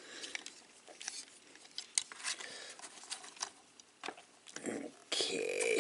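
Scattered light plastic clicks and scratchy handling noise from a Transformers Siege Voyager Class Springer action figure as its parts are moved and shifted into place by hand.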